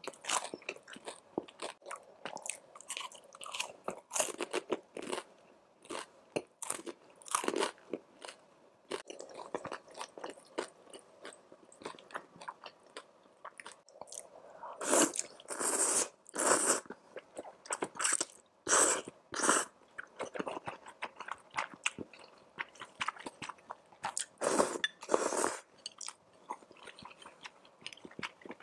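Close-miked crunching and chewing of a crispy fried snack, with many small crackling bites. From about halfway, louder and longer bursts come as rice noodles are slurped.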